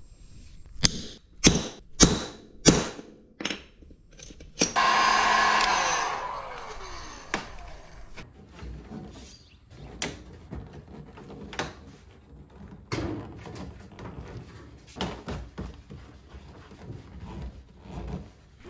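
Tool and hardware handling: a run of sharp clicks, then a small electric motor runs for about a second and a half and winds down with a falling whine, followed by scattered knocks and clicks as parts are fitted.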